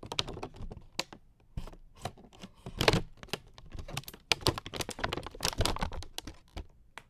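Stiff clear plastic packaging crackling and clicking as it is cut and handled right at a clip-on microphone: an irregular run of sharp clicks and short crinkling bursts, the loudest just before three seconds in and around five and a half seconds.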